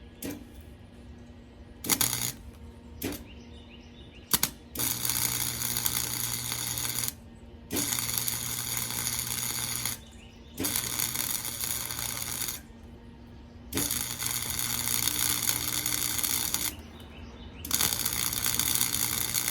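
Arc welding: a few short crackling strikes in the first seconds, then five steady runs of arc crackle lasting two to three seconds each, with a low electrical hum under each run, as weld is laid on a steel ramp.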